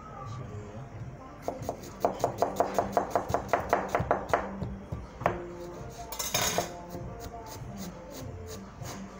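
Kitchen knives chopping vegetables on cutting boards: a fast, even run of about six strikes a second for a couple of seconds, then scattered chops, with a short burst of noise about two-thirds of the way through.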